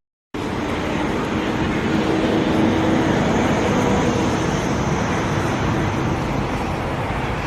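Steady road traffic noise, an even wash of passing cars with no single event standing out, after a brief dropout at the very start.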